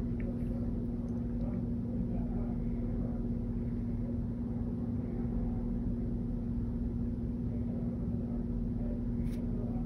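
A steady hum: one constant low tone over a low rumble, unchanging throughout, with a light click near the end.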